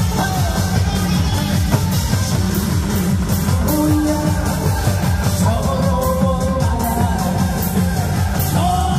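Loud amplified music with a steady beat and a singing voice, played through a PA system.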